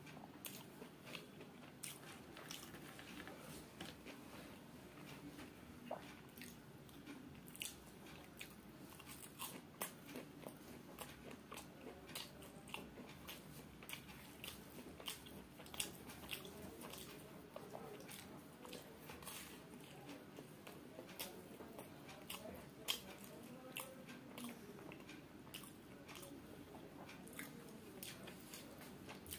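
Chewing of crisp fried samosa, with many small crunches scattered throughout.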